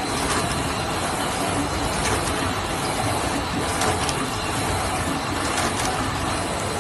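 A paper straw making machine running: a steady, dense mechanical clatter of its moving parts, with many light clicks and a thin steady high tone.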